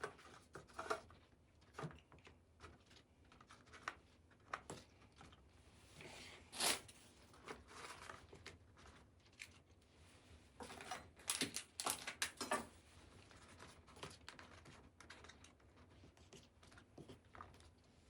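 Faint handling noises: scattered clicks, taps and rustles of items being moved by hand, louder in short clusters about seven seconds in and again around eleven to twelve seconds.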